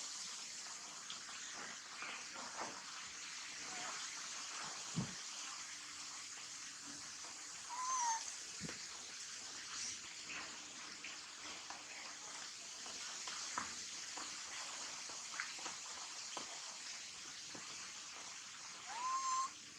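Baby monkey giving two short, high, bending calls, one about 8 seconds in and one near the end, over a steady hiss with scattered small clicks and taps.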